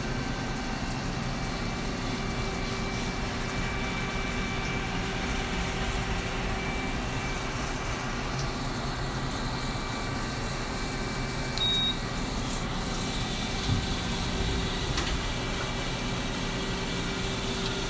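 Okuma LU-15M CNC chucking lathe running, its spindle turning at about 1200 RPM while a turret tool machines the part: a steady, even machine hum with a few faint ticks in the second half.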